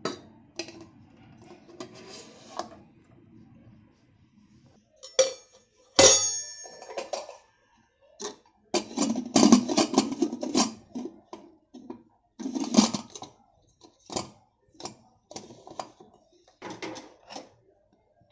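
Stainless-steel pressure cooker and its inner vessel clanking and knocking as the cooker is loaded, its lid fitted and the cooker set on the stove. There is one sharp, ringing metal strike about six seconds in, then a series of shorter clatters and knocks.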